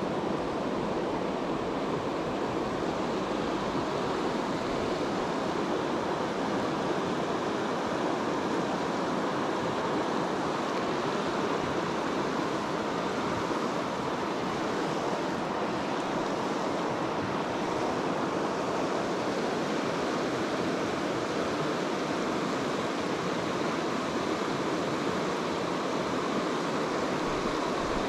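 Shallow mountain stream rushing steadily over boulders and a cobble riffle, one constant, even rush of water.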